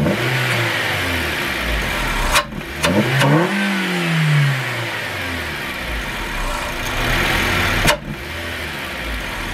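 Suzuki Swift engine breathing through an open cone performance air filter, idling and revved once in the middle, its pitch rising and falling back. The intake noise sounds like it's got a turbo.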